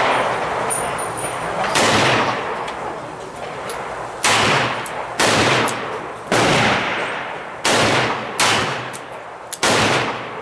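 Revolver fire on an indoor-style range: about seven sharp shots, unevenly spaced a second or so apart, each trailing off in reverberation.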